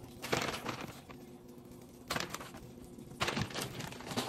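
Three short bursts of rustling and handling noise as squash blossoms and a handful of shredded cheese are piled onto a tortilla on a griddle pan, over a faint steady hum.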